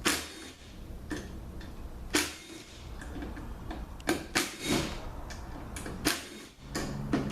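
Sharp metal clicks and clinks of hand tools on the bolts of an automatic transmission's front pump as they are loosened and taken out, about seven strikes at uneven intervals over a low steady hum.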